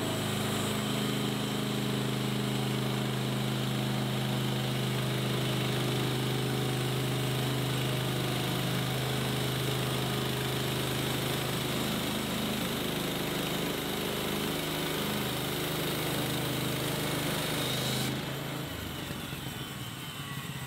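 Woodland Mills HM130 Max portable band sawmill running under load, its small gas engine running steadily while the band blade saws through an old railroad tie. About eighteen seconds in, the cutting hiss stops and the sound drops as the cut ends, leaving the engine running more quietly.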